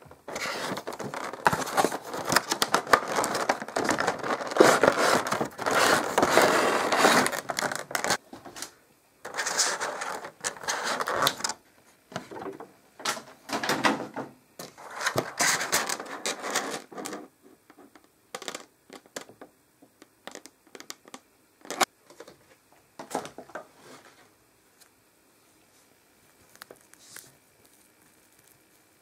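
Toy packaging being handled and opened: crinkling and crackling of plastic and cardboard in long dense stretches, then shorter bursts, then only scattered light rustles and clicks near the end.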